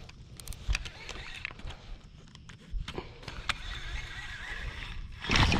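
Baitcasting reel being cranked on a retrieve: a faint whirr from the reel's gears with scattered clicks and handling knocks. A short loud rustling rush comes near the end.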